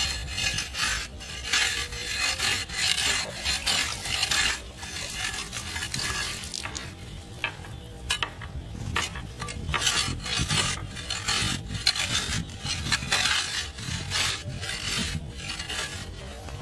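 Small metal shovel scraping and digging into wet clay soil, in quick irregular strokes.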